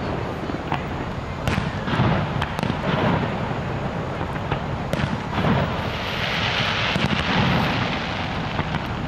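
Fireworks display: shells bursting with sharp bangs at irregular intervals, over a steady background hiss that thickens for a stretch past the middle.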